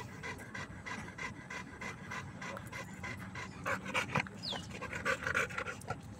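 Large black dog panting quickly after exertion, about three breaths a second, the breaths growing louder and less regular in the second half.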